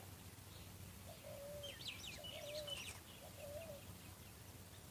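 A dove cooing faintly, three short coos about a second apart, with a brief run of high chirps from a small bird in the middle.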